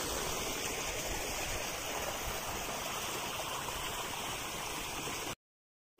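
Water rushing steadily along a small irrigation channel, an even, continuous flow that cuts off abruptly about five seconds in.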